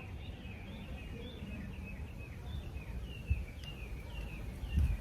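Small birds chirping, a string of short notes, many falling in pitch, over a low steady rumble. A low thump comes near the end.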